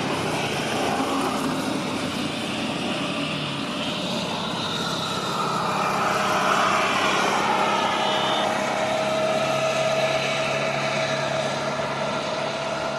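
Jet engines of a Boeing 787-8 Dreamliner on the runway: a steady rushing noise that swells about halfway through, with a steady whine coming in around two-thirds of the way.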